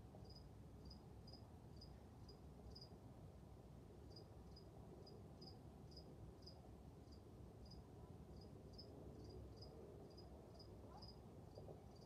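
Faint insect chirping: short high chirps about three a second, pausing briefly about three seconds in, over a low steady room hum.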